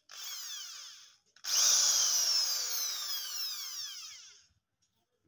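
Crown electric drill run in short trigger pulses after a carbon-brush service: a brief whine that winds down, then a longer, louder run about a second and a half in whose whine falls steadily as the motor coasts to a stop.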